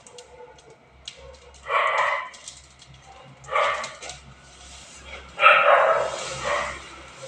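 A dog barking three times, the last bark drawn out longer, over a steady light crackle of burning straw.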